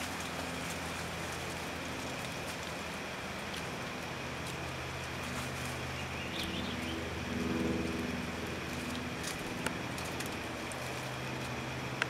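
A steady low mechanical drone under a hiss, shifting slowly in pitch like a distant engine, with a brief swell partway through and one sharp click late on.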